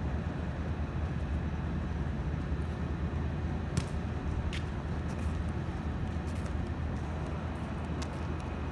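Steady low outdoor rumble with two short sharp taps about four seconds in.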